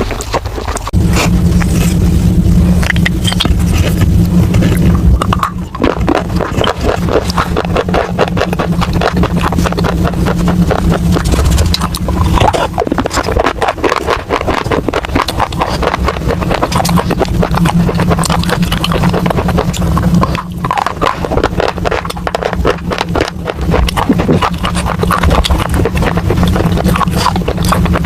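Close-miked crunching and chewing of baked clay pot pieces: a dense, continuous run of gritty crunches over a steady low hum.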